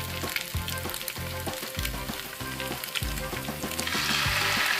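Chicken fritter batter frying in hot vegetable oil, a steady sizzle that gets louder about four seconds in as another spoonful of batter goes into the pan.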